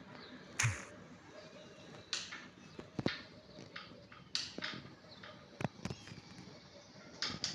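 Handling noise from a handheld phone: scattered clicks, knocks and short rustles as it is moved about and brushes against a blanket.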